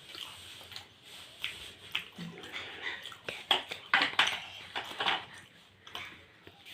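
People eating: irregular clicks and wet mouth sounds of chewing sticky rice-flour pithe, with light clinks of dishes.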